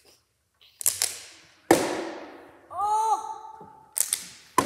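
Partly filled plastic water bottle being flipped and landing on a wooden table: a series of sharp knocks and thuds, the loudest about two seconds in. A short voiced exclamation comes about three seconds in.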